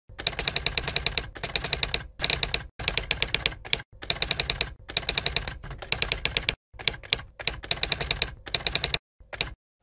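Typewriter sound effect: rapid runs of key clacks, about ten a second, in bursts of half a second to a second with short pauses between.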